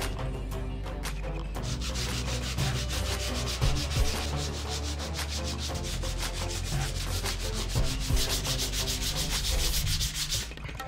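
Sanding block with fine abrasive paper rubbed in rapid back-and-forth strokes over a thin etched brass plaque, taking black spray paint off the raised face so that only the etched letters stay filled. The strokes start about two seconds in and stop just before the end.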